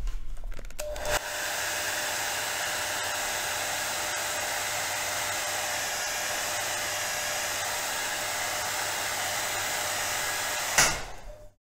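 Hot-air blower running steadily with a faint steady whine over its rushing air, heating the glass to soften the digitizer adhesive. It switches on about a second in and cuts off near the end.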